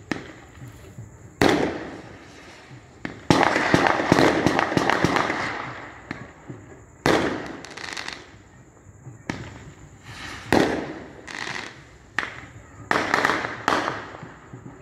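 Fireworks going off: a string of about eight sharp bangs, each fading away after it. A dense run of rapid crackling comes a few seconds in.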